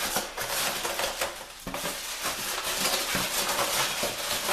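Packaging and contents of a monitor box being handled: continuous crinkly rustling with many small clicks and knocks.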